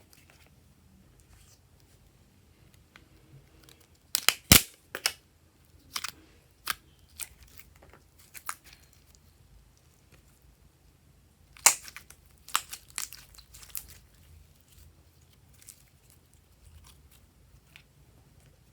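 Slime being worked by hand, giving a series of sharp crackling pops and crunches. They come in two clusters, about four seconds in and about twelve seconds in, with fainter ones in between and after.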